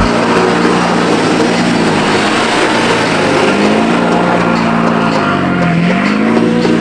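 Hummer H1's V8 engine running hard under load as the truck spins donuts, with the rush of spinning tyres throwing snow and gravel. The engine's pitch dips about five and a half seconds in and then rises again.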